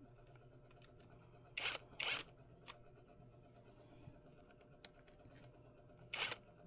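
Impact wrench set to low torque, fired in short bursts of about a fifth of a second, tightening nuts onto the radiator's fan-mounting studs: two bursts close together about a second and a half in, and one more near the end.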